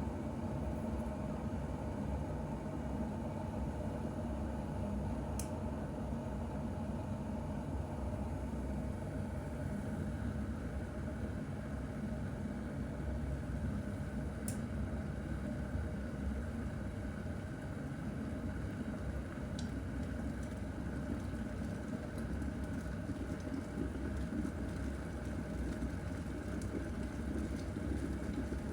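Electric kettle heating water: a steady low rumble, with a few faint ticks.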